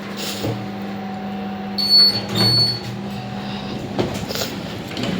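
Passenger lift car arriving at a floor: a steady hum from the car, two short high electronic beeps about two seconds in, then the doors sliding open as the hum dies away.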